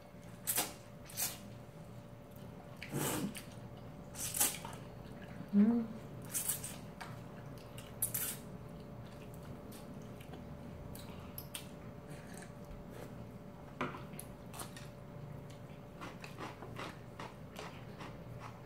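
Cold naengmyeon noodles being slurped into the mouth in about six short, loud sucks over the first eight seconds, followed by softer chewing and small clicks. A faint steady hum runs underneath.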